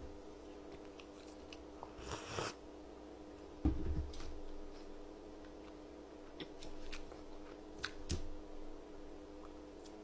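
A person chewing a mouthful of food close to the microphone, with scattered small clicks, a short rustle a little after two seconds and a soft thump near four seconds, over a low steady hum.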